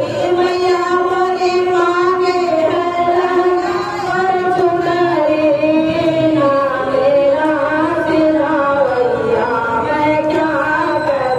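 A woman singing a Hindi devotional bhajan to the goddess into a microphone, with long held notes that bend and glide in pitch.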